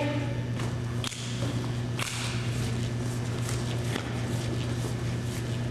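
Steady low electrical hum and hiss, with a few sharp knocks or clicks scattered through it.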